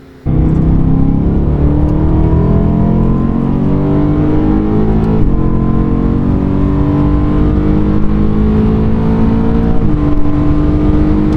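BMW E9x M3's S65 V8 through Cherrybomb Extreme mufflers, accelerating under moderate throttle. Engine pitch climbs steadily and drops at upshifts about five and ten seconds in, then climbs again.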